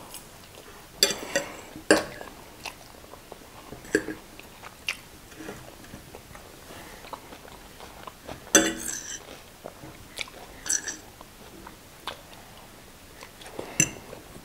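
Close-miked eating sounds: chewing and slurping of instant noodles, with scattered short wet clicks and smacks. The loudest smack comes about two-thirds of the way in.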